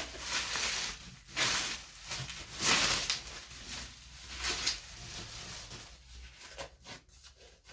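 Packaging rustling and crinkling in several loud bursts as items are handled and unwrapped, then a few faint clicks and taps near the end.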